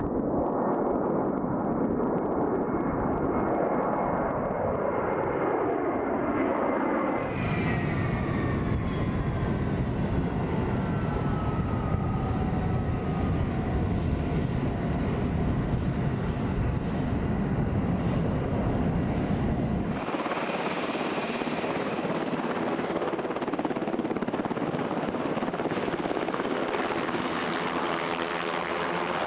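Military aircraft in three short scenes. First a four-engine E-3 Sentry jet passes overhead, its pitch sliding down. From about seven seconds in, jet engine whine falls steadily in pitch as engines on the F-16 flight line wind down. From about twenty seconds in, an HH-60 Pave Hawk helicopter's turbines and rotor run, with a regular rotor beat near the end.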